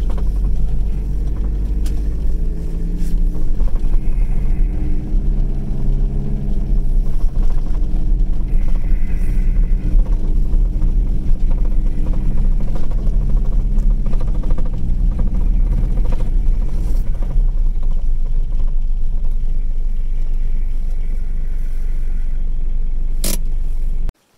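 A car driving, its engine and road rumble steady and low, with the engine's pitch shifting a little as it goes. A single click comes near the end, and then the sound cuts off suddenly.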